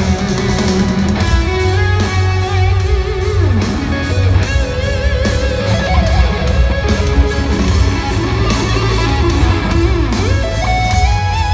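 Hard rock band playing live, heard through a big arena PA from the stands: drums and bass under a sustained electric guitar lead line that bends and wavers in pitch.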